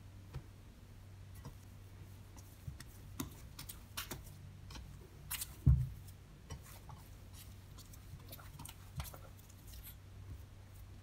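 Hand kneading soft, sticky bread dough in a bowl: scattered small wet clicks and squelches as the dough is gripped and pulled, with one loud thud about halfway through as the dough is pressed down against the bowl.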